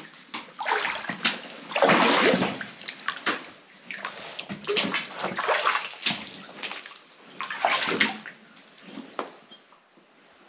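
Water sloshing and splashing in a flooded mine tunnel as someone wades through it, in uneven surges that die down near the end.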